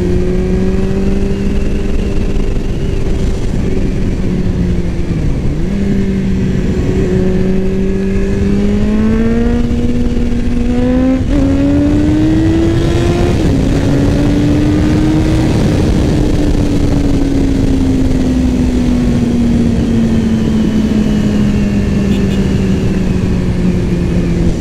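Motorcycle engine under way, with wind noise. Its pitch holds steady, dips briefly about five seconds in, then climbs as it accelerates until a sudden drop at a gear change about thirteen seconds in, and then slowly falls as the bike slows.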